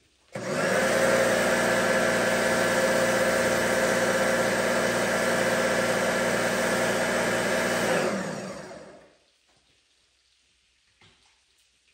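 Electric pressure washer motor and pump running steadily with a whir, starting abruptly and then spinning down and falling silent about eight seconds in. Faint drips follow.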